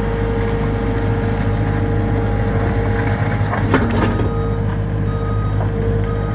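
Skid steer engine running steadily, with a short cluster of knocks a little under four seconds in.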